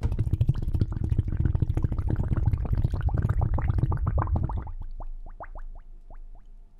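Underwater recording of whale sounds: a dense run of rapid clicks and pulses that thins out about five seconds in into a handful of short rising chirps.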